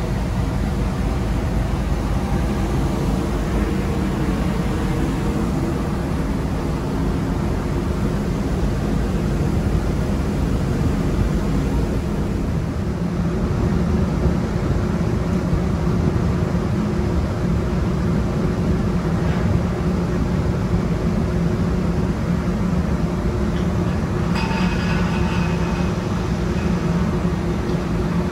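Ferry's engines and machinery running with a steady low rumble and hum while the ship docks. A brief high tone of about two seconds sounds near the end.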